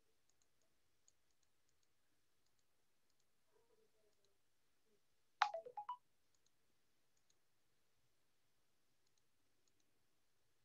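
Near silence with faint scattered clicks, broken about halfway through by one brief sharp sound of about half a second that starts suddenly and falls in pitch.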